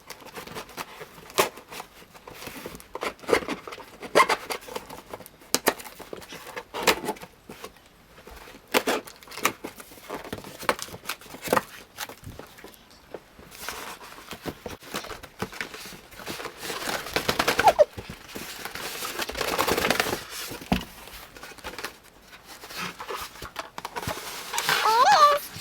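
A cardboard box being opened and unpacked by hand: a string of clicks, knocks and crackles of packaging, with longer stretches of rustling and tearing in the second half.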